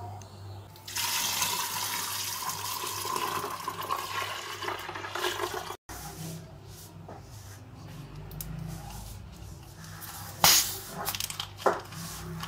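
Liquid rushing and splashing for about five seconds, with a faint rising tone, cut off suddenly. Then quieter handling of a plastic Sprite soda bottle, with a few sharp crackles and clicks as its screw cap is gripped and twisted.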